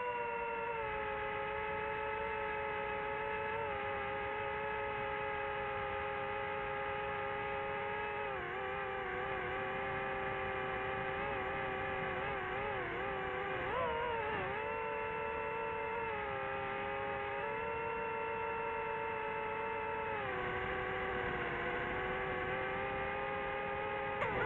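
DJI quadcopter's motors and propellers whirring in flight, a steady multi-tone buzz. Its pitch wobbles and shifts a few times as the drone changes speed and direction, dipping about a third of the way in and again near the end.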